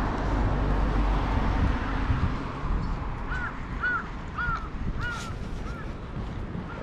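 Wind rumbling on the microphone. Then, about three seconds in, a bird calls six times in a quick, even series of short caws.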